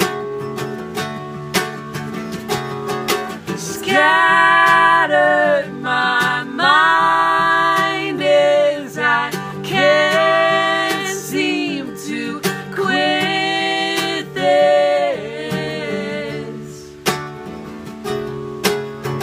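A guitar being picked, joined from about four seconds in until about sixteen seconds by a man and a woman singing together in long held notes.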